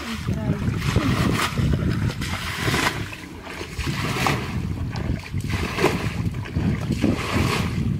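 Muddy water splashing and sloshing as buckets scoop it up and fling it out of a shallow ditch, with wind buffeting the microphone.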